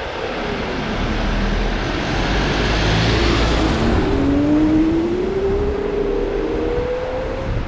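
Street traffic passing close by, loudest about three seconds in, with a motor whine rising steadily in pitch over the last few seconds.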